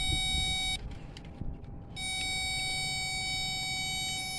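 Handheld electrical circuit tester sounding a steady buzzing tone. The tone stops under a second in, then starts again about two seconds in and holds. It signals voltage reaching the window motor's connector when the window switch is pressed.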